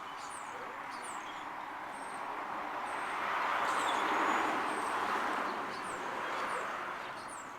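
A vehicle passing by, its noise swelling to a peak about four seconds in and then fading, with small birds chirping throughout.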